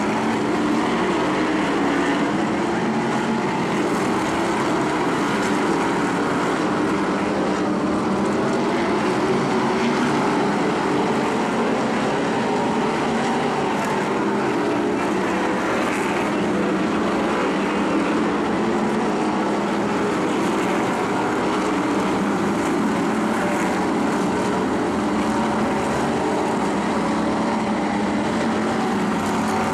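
Several modified race cars' engines running hard around an oval track, blending into one continuous loud drone with no letup.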